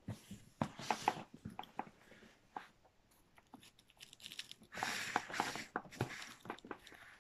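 Plastic wrap crinkling and a cardboard box being handled, in two bursts of rustling, one near the start and one about two-thirds in, with scattered clicks and knocks.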